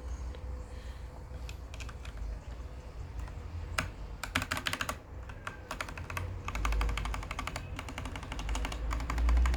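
Mechanical keyboard keys clacking: a few scattered clicks, then quick runs of rapid clicks about four seconds in and again from about six seconds.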